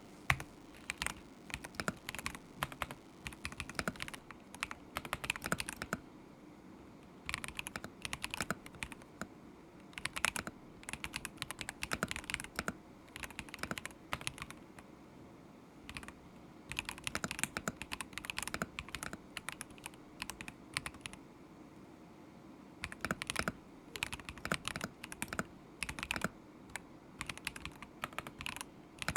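Typing on a KZZI K75 Pro mechanical keyboard with Moment linear switches: runs of rapid key clacks, broken by short pauses of a second or two.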